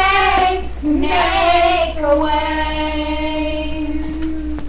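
Young girls' voices singing drawn-out notes, the last held steady for nearly three seconds.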